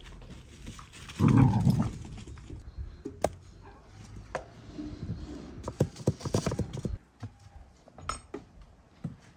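A dog gives one short, loud call about a second in. Then come a run of light knocks and taps as knives cut watermelon rind against a board, busiest a few seconds later.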